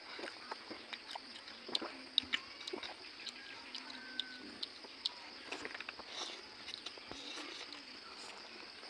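Close-up eating sounds: chewing and wet mouth noises with many small scattered clicks and smacks, over a faint steady high hiss.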